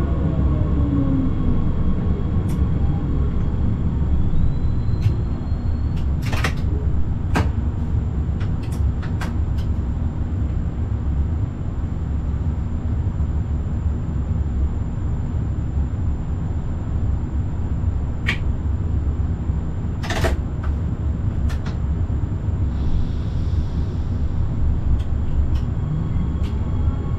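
Forchbahn electric light-rail train running along the track, a steady low rumble with a few sharp clacks. A motor whine falls in pitch at the start and rises again near the end.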